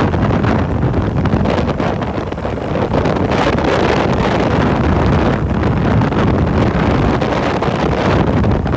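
Wind buffeting the microphone on a moving motorbike, with the motorbike's engine running underneath as a steady low rumble.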